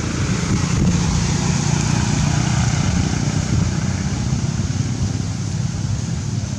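Steady low rumble with an even hiss of outdoor background noise, no clear tones or distinct events.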